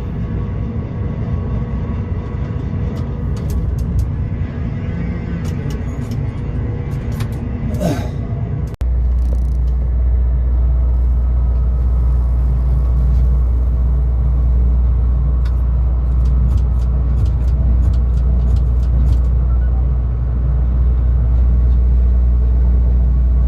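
Steady low rumble of a tower crane cab in strong wind, with scattered sharp clicks and rattles. About nine seconds in it changes abruptly to a heavier, deeper rumble that stays steady.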